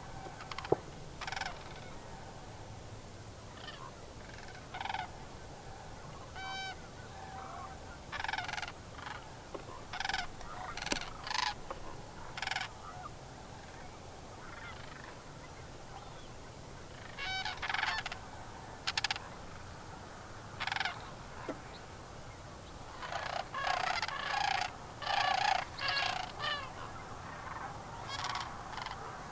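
A flock of sandhill cranes calling, in short bouts of a few calls at a time, with many birds calling over one another near the end. A single brief sharp click about a second in.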